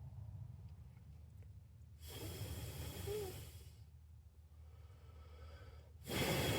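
A person's breathing close to the microphone: two long, hissy exhales, the first about two seconds in and the second near the end, over a faint steady low hum.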